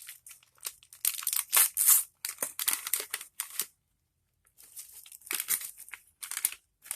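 Plastic snack bag being torn open and crinkled by hand, in irregular rustling bursts with a short pause midway.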